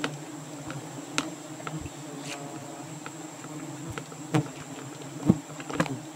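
Giant honeybees (Apis dorsata) buzzing in a steady swarm drone around their comb, with a few sharp taps, the loudest about five seconds in.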